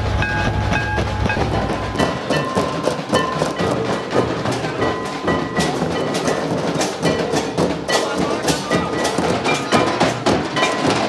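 Festive folk drumming: many quick drum strikes with a melody held over them. A low steady rumble underlies the first two seconds.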